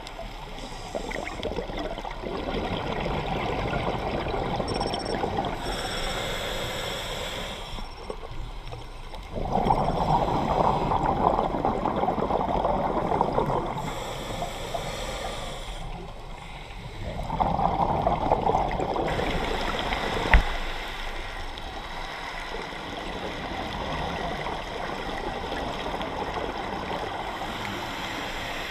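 Underwater sound of a scuba diver breathing through a regulator: a thin hiss on each inhale, then a long rush of exhaled bubbles, twice over, against steady water noise, with one sharp click about twenty seconds in.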